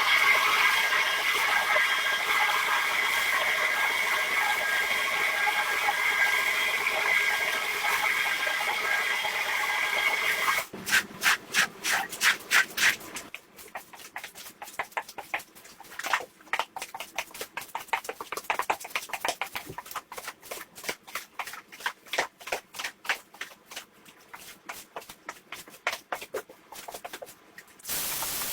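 A steady machine with a whine runs for about ten seconds, then cuts off. It is followed by quick repeated strokes on the rug, about four a second, that continue until near the end.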